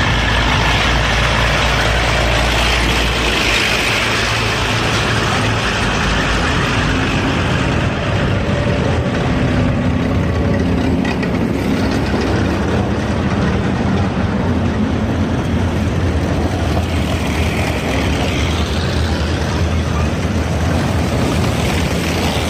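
Engines of a slow column of WWII-era military vehicles driving past: first a tracked armoured vehicle, then jeeps and trucks. The loud, deep engine note of the armoured vehicle drops away about six seconds in as it passes, and the lighter engines of the following vehicles carry on steadily.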